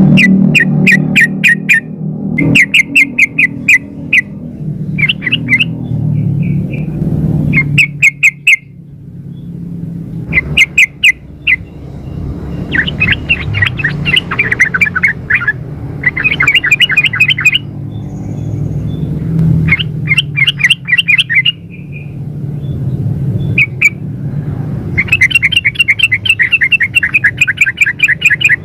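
Female yellow-vented bulbul (trucukan) calling for a male in loud bursts of fast chattering notes, one burst every second or two, over a steady low hum.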